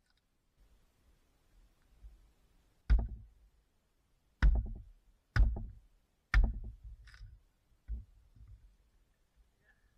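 Dry dead hardwood firewood cracking sharply as it is broken by hand: four loud cracks about a second apart, then a weaker one.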